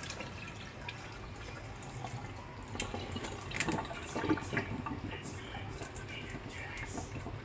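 Water dripping and trickling from a mesh strainer into a stainless steel sink while a hand squeezes rinsed canned tuna to drain it, with small wet squishes and clicks that come thickest in the middle.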